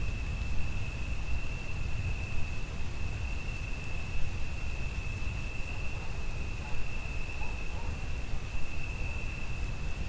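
Crickets chirping in a continuous high trill that holds one steady pitch throughout, over a steady hiss of rain and a low rumble.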